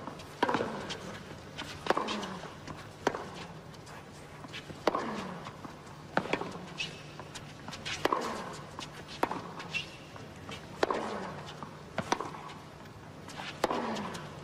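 Tennis rally on a hard court: racquets strike the ball back and forth, a sharp crack about every second and a half, about ten strokes in all, over a steady low hum.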